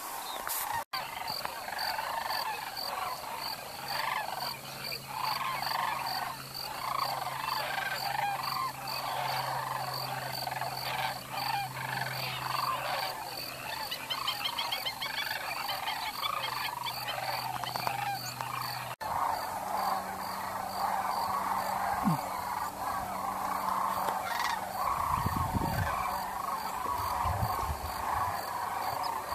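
A flock of sandhill cranes calling, with many overlapping calls forming a steady chorus.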